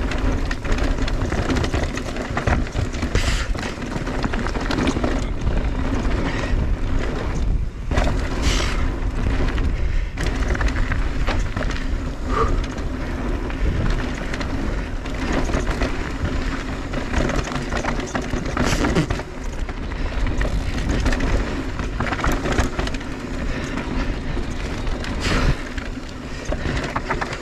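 Mondraker Crafty Carbon R electric mountain bike ridden down a dirt trail: tyres rolling over the ground and the bike rattling and knocking over bumps, under wind buffeting the microphone.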